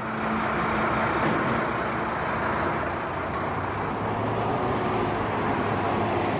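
Freightliner fire truck's diesel engine running steadily with a low hum as the truck drives off.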